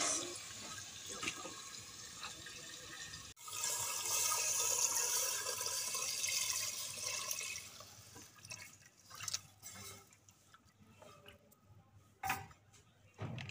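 A thin white kadhi mixture poured from a bowl into a steel cooking pot, a steady splashing pour lasting about four seconds. After it, a wooden spoon stirs the pot, with a few scattered clicks.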